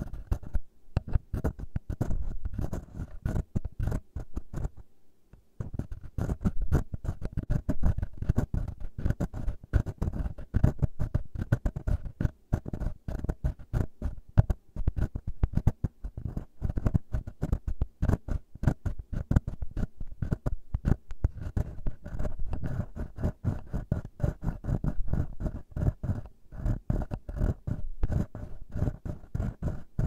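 Fingertips and fingernails scratching and rubbing quickly right on a handheld recorder's microphone capsules: a dense, fast run of scratchy clicks and rustles, with a short break about five seconds in.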